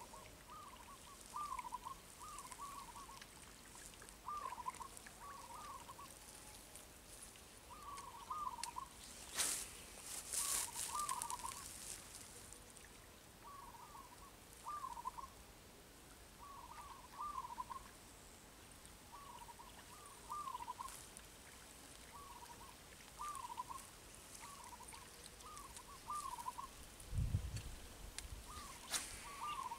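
A bird calling over and over in short curling notes, in twos and threes every second or two. A few sharp clicks and a brief rustle about a third of the way in are the loudest sounds, and a low thump comes near the end.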